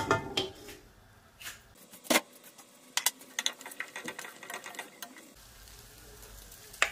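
Wooden spatula knocking and scraping against a nonstick pan and pot: a few separate knocks, then a quick run of clicks about three seconds in as chicken and peas are stirred.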